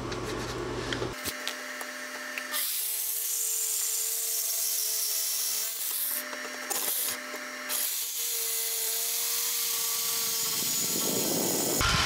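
Corded jigsaw cutting through 1/8-inch aluminum angle: the motor runs at a steady pitch while the blade rasps through the metal. The cut pauses briefly twice around the middle.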